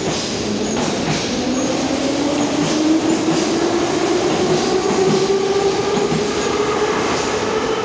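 Soviet-built 81-717/714 metro train pulling out of the station: its traction motors whine, rising steadily in pitch as it gathers speed, over a steady wheel rumble with irregular clicks from the rail joints.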